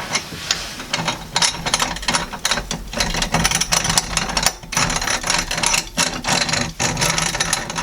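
Hand-cranked plate grain mill being turned with its grinding plates slackened off, grain feeding through in a dense run of irregular clicks and crackles.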